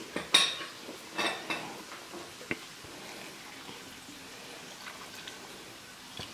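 Hand-held metal lime squeezer and limes knocking and clicking against a ceramic bowl, a few sharp knocks in the first couple of seconds, then faint squeezing as lime juice is pressed into the bowl.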